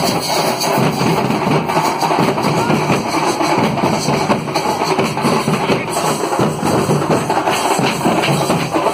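Band melam drumming: a group of bass drums and other drums beaten continuously and densely, with crowd voices mixed in.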